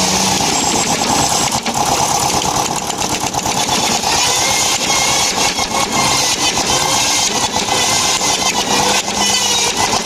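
Power tool motor running steadily under load, with a dense, rapid rattle.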